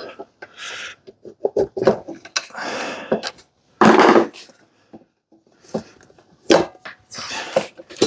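Metal parts of a Briggs & Stratton Intek engine scraping, rubbing and knocking as a stuck piston is worked up the cylinder bore, its connecting rod melted onto the crankshaft. An irregular series of scrapes and knocks, the loudest about four seconds in.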